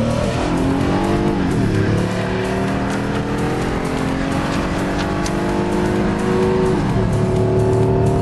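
Car engine heard from inside the cabin while driven hard on a race track: the revs fall over the first couple of seconds, then climb steadily under acceleration, with an upshift dropping the revs just before the end.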